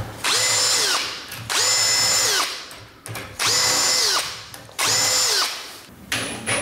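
Cordless drill run in four short bursts, each spinning up, holding a steady whine for about a second, then winding down.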